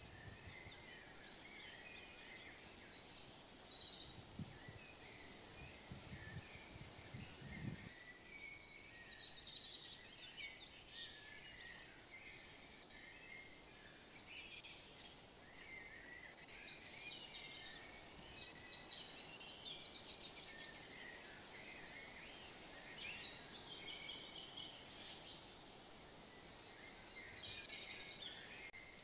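Faint songbirds chirping and singing over a steady outdoor hiss, with a few soft low thumps about four to eight seconds in.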